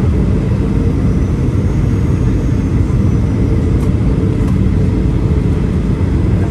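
Steady engine and rushing-air noise inside a Boeing 737's cabin, heard from a window seat beside the wing-mounted turbofan, with a steady low hum, as the jet descends on approach to landing.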